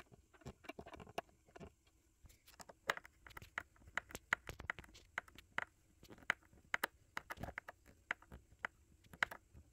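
Handheld screwdriver turning a screw through a rubber foot into a wooden cutting board: a run of light, irregular clicks, several a second, some louder than others.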